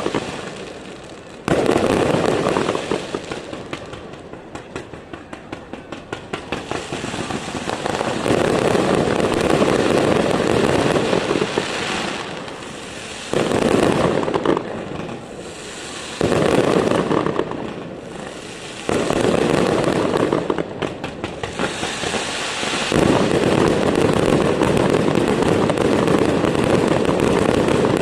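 Fireworks display: several sudden loud bursts, each trailing off into dense crackling, with rapid popping in between.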